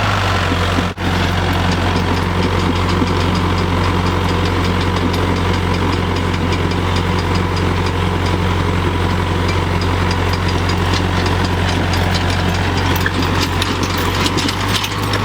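Engine idling steadily, with faint regular ticking above the hum.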